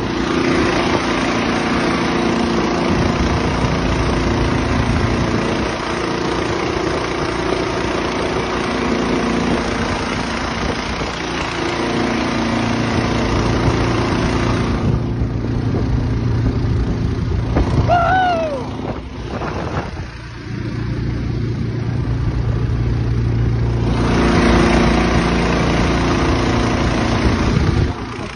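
A Mud-Skipper 15 hp surface-drive mud motor with a 420cc four-stroke engine runs steadily, pushing a jon boat along at speed. Wind and water spray rush over the engine drone, and that rushing eases for several seconds in the middle.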